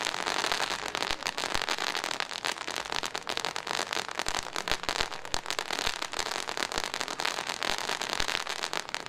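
Firework fountain burning: a steady hiss of spraying sparks laced with dense, rapid crackles.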